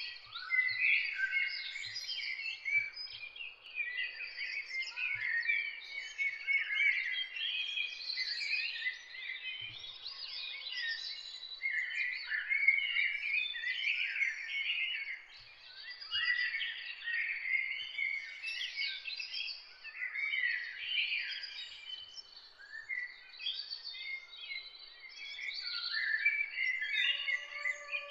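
A dense chorus of many small birds chirping and twittering, with many short calls overlapping and no pause.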